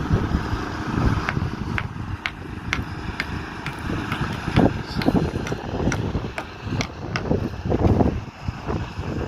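Wind buffeting the microphone with a low, uneven rumble, over a run of sharp taps or clicks, about two a second, starting about a second in.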